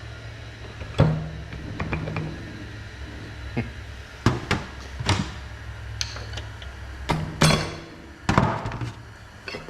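Hand tools knocking and clinking against the metal parts of an A727 TorqueFlite automatic transmission being taken apart at the tail shaft housing: several separate sharp knocks, the loudest about a second in and about three-quarters through.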